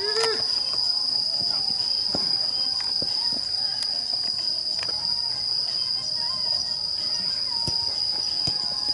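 Crickets chirring in one steady high-pitched note, with a short shout just after the start and a few scattered sharp knocks.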